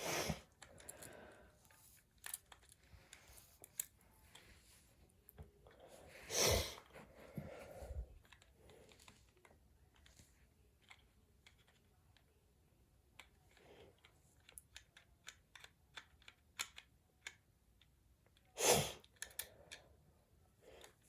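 Small plastic parts of a toy's wing pack being handled and pried at: scattered light clicks and ticks, with louder brief scraping rustles about six and a half seconds in and near the end.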